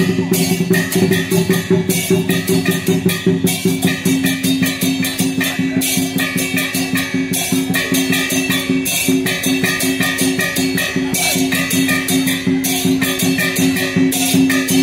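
Upbeat music with drums and a fast, steady beat over held low notes.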